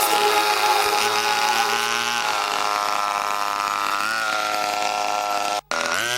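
Small engine of a 1/5-scale remote-control truck running steadily, its pitch rising and falling a few times as it is throttled, with a split-second gap about five and a half seconds in.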